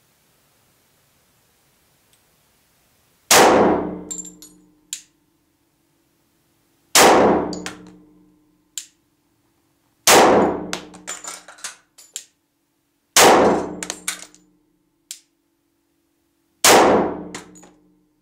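Five pistol shots from a compensated Glock 24C in .40 S&W, about three to three and a half seconds apart. Each shot trails off in echo and is followed by a few light clinks. The pistol fires and cycles normally with new factory ammunition.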